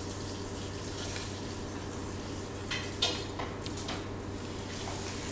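Room tone: a steady low hum under a faint even hiss, with a few soft clicks or rustles about three seconds in.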